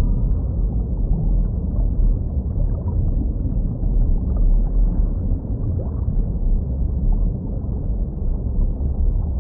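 Underwater ambience: a steady low rumble of water noise with faint gurgling, no calls or tones in it.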